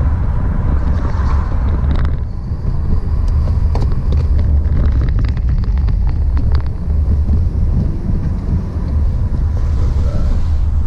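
Car being driven, heard from inside the cabin: a steady low road and engine rumble, with a few light clicks in the middle.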